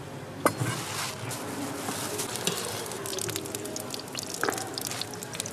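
Food frying and sizzling on a hot surface, with dense crackling throughout and a sharp utensil knock about half a second in.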